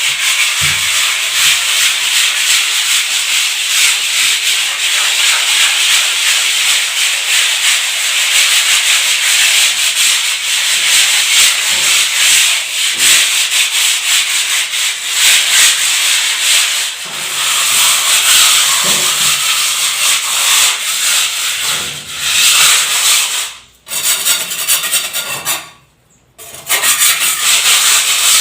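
Steady, loud rough rubbing of an abrasive worked over a hard building surface, like hand sanding, in continuous strokes. It stops briefly twice near the end.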